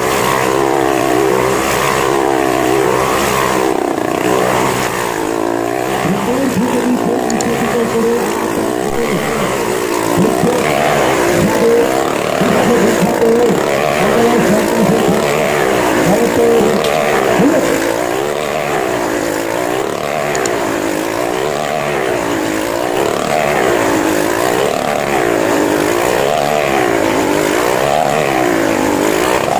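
Motorcycle engine running hard inside a steel-mesh globe of death, its pitch rising and falling again and again, about every two seconds in the second half, as it circles the sphere.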